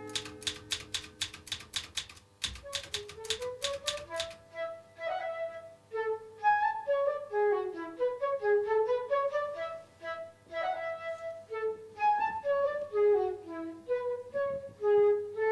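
Rapid clacking of a manual typewriter's keys for about four seconds, then a woodwind, flute-like, plays a slow melody of single notes.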